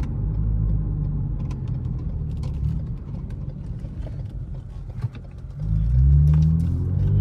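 Lexus with a muffler-delete axle-back exhaust, heard from inside the cabin on the move: a steady low exhaust drone that eases off about three seconds in, then grows suddenly louder with a rising pitch near the end as the car accelerates.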